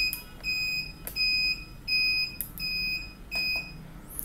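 XM-18SW incubator controller's buzzer beeping: a high single-tone beep, each about half a second long, repeating about every three-quarters of a second, about six times, then stopping near the end.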